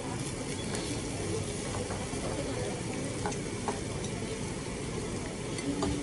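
Steady restaurant din with the hiss of meat sizzling on a tabletop Korean barbecue grill. A few light clicks of tongs and cutlery come through it.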